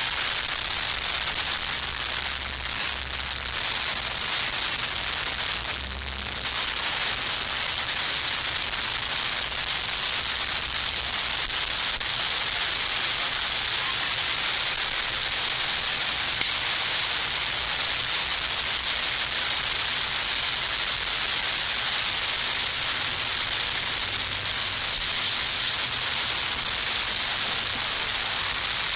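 Small camp stoves burning under pots of water being heated toward a boil: a steady, even hiss with no break.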